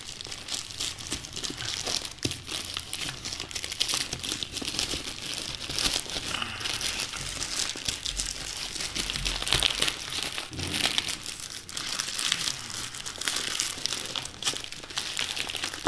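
Plastic courier mailer bag being torn open and crumpled by hand: continuous crinkling with short rips.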